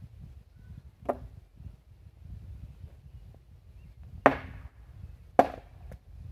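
Three sharp hammer blows at the metal post base of a wooden 6x6 post, likely nailing the bracket to the post: one about a second in, then two a second apart near the end, each with a brief ring.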